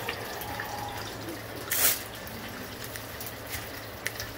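Hot oil bubbling and crackling in an electric deep fryer around a basket of hushpuppy-battered chicken wings, a steady hiss with a brief louder burst about two seconds in.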